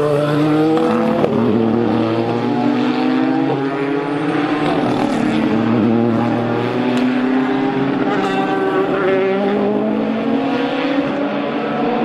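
Several Le Mans endurance race cars, a Ford GT among GT and prototype cars, running at speed through a corner. Their engine notes overlap and rise and fall in pitch with throttle and gear changes.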